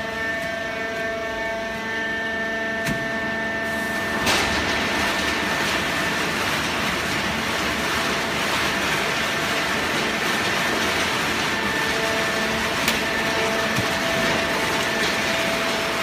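Automatic horizontal hydraulic baler for waste paper running: a steady machine whine of several tones, and about four seconds in a dense, even rushing noise comes in and stays.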